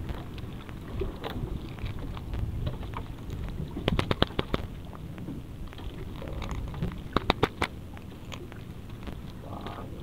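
Close-up handling noise as gloved hands work a spiny lobster free from a tangled nylon gill net: rustling and crackling, with two quick runs of sharp clicks, about four seconds in and just past seven seconds. A steady low rumble runs underneath.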